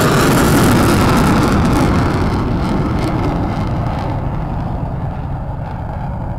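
Military jet aircraft's engines passing by on takeoff, loudest about half a second in and falling in pitch, then fading to a receding rumble as the high hiss dies away in the second half.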